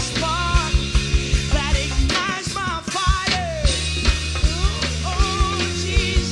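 Live worship band playing rock-style music: a drum kit keeps a steady beat under sustained bass and keyboard chords, with a lead line that bends and wavers above.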